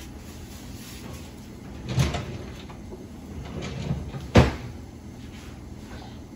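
A kitchen cupboard door knocking open and shut: a dull knock about two seconds in and a sharper, louder one about two seconds later, over a low steady hum.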